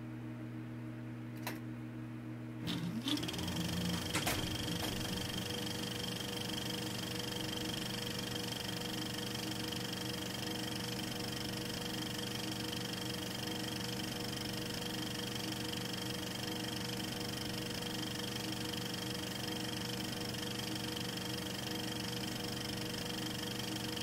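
A steady hum of several constant tones, a little louder from about three seconds in, where a few faint clicks sound.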